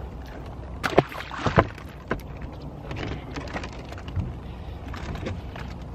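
A boat's motor running with a steady low hum. Two sharp knocks come about one and one and a half seconds in, with lighter clicks after.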